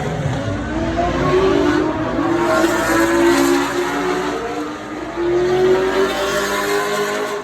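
A high-performance car engine accelerating hard, its pitch climbing and dropping back a few times as it runs through the gears.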